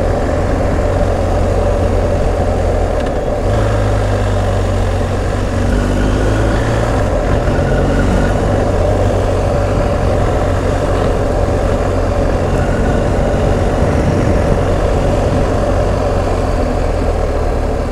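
BMW R1250 GS Adventure's boxer-twin engine running steadily under way, its pitch rising for a few seconds about four seconds in.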